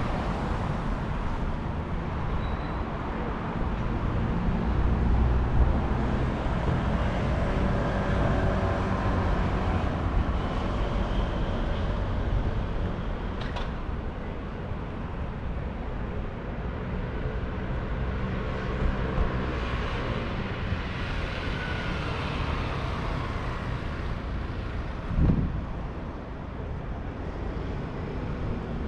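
Road traffic on a wide city street: a steady rumble of car engines and tyres passing. There is one short thump near the end.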